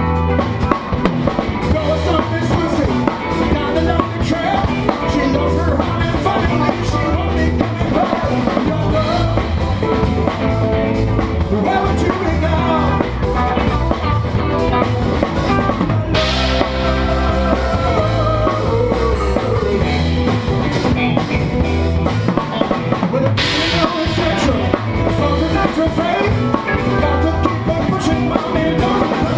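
A live band plays a rock song, led by a drum kit played with bundled rods that keep a steady beat under bass and melody. Brighter cymbal washes ring out about sixteen and twenty-three seconds in.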